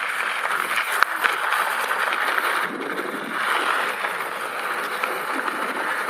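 Riding noise from an e-bike moving along a dirt and gravel track: a steady rush of wind and tyre noise, with a couple of sharp knocks about a second in.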